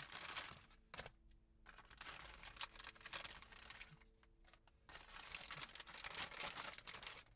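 Plastic packaging bag and paper inserts crinkling and rustling as a package is opened and its contents handled. The sound comes in three spells of crackling, with quieter gaps about a second in and about four and a half seconds in.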